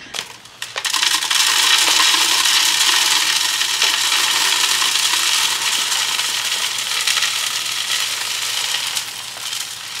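Bird seed mix with sunflower seeds poured from a bag into a plastic feeder hopper: a steady hiss and patter of seeds that starts about a second in and eases off near the end.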